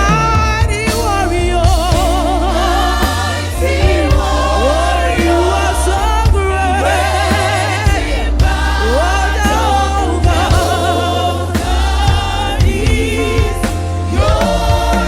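Gospel choir singing worship with wavering vibrato and sliding notes, over a band with a strong steady bass.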